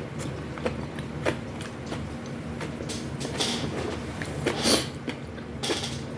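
Close-miked eating sounds: chewing with irregular crunches, smacks and clicks, and a louder crunch about three-quarters of the way through, over a steady low hum.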